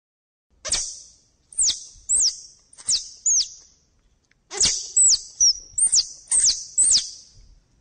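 An animal's high chirping calls: about a dozen quick chirps, each sweeping sharply downward in pitch, in two bursts with a short gap about halfway through.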